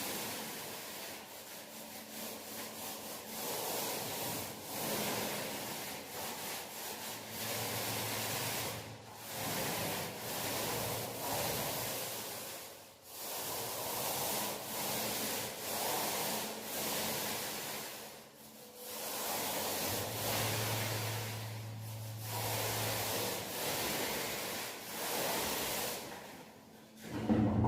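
Paint roller being worked over a wall: long, even rubbing passes broken by short pauses as the roller changes direction or is reloaded.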